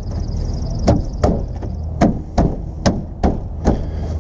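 A Crown Victoria Police Interceptor grille being smacked by hand to snap its bottom clips into place: about seven sharp knocks, unevenly spaced, starting about a second in.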